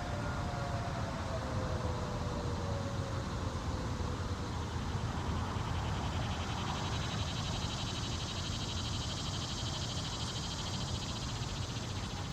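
Federal Signal Thunderbolt 1000 siren's last wind-down, its falling pitch fading out in the first two seconds or so. A low rumble goes on under it, and from about four seconds in a steady, high-pitched insect buzz with a rapid pulse sets in.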